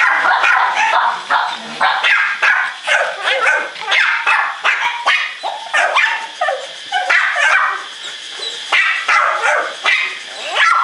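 Pekingese dog barking and yipping in a rapid run of short, high barks, about two to three a second.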